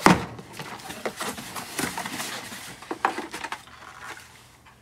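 Carded Hot Wheels cars and a cardboard box being handled: one sharp knock at the start, then scattered clicks, taps and rustling as the blister packs are pulled out.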